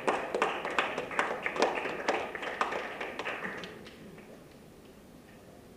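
A hall audience applauding in scattered hand claps that die away about four seconds in.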